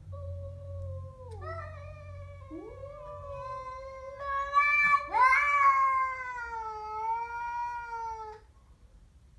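Siamese cat giving one long, wavering growling yowl of about eight seconds, a hostile warning at a stray cat. It swells to its loudest and highest about halfway through, then slides slowly down in pitch before it stops.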